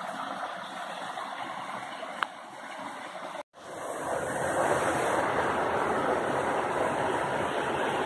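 Small forest stream splashing over a little waterfall, a steady rush of water. It breaks off for an instant about three and a half seconds in and comes back louder.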